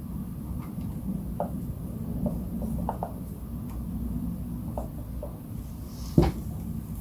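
Small clicks and taps of hands and tools working on an electric guitar during its setup, with one louder knock about six seconds in, over a steady low rumble.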